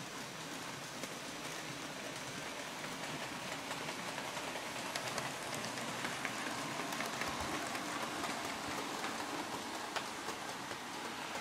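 OO gauge model trains running on layout track: a steady rushing hiss of wheels and motors with scattered small clicks as they pass over rail joints, getting a little louder about halfway through.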